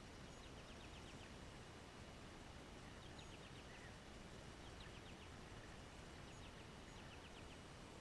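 Faint outdoor ambience with a distant songbird singing short trills of quick descending notes, about four phrases spaced a second or more apart.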